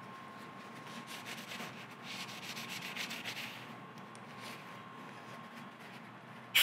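Paper shop towel rubbing and wiping grease off a metal machine slide, a scratchy scrubbing that is strongest in the middle. Right at the end comes a short, sharp blast of compressed air from a blow gun.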